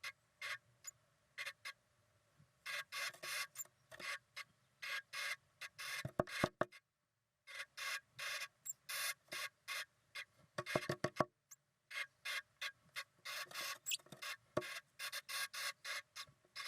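Female blue tit making a strange rasping noise, repeated in short scratchy bursts, a few each second, broken by a brief pause. Two quick runs of sharp taps come part-way through.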